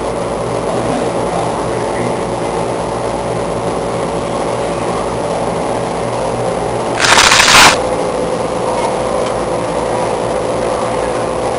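Man-made tornado exhibit running: a steady whirring rumble with a constant hum, broken about two-thirds of the way through by one loud hiss lasting under a second.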